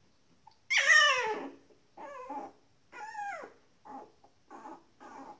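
19-day-old Shetland sheepdog puppies yelping and whining as they tussle: one loud yelp with a falling pitch about a second in, then five shorter, fainter cries.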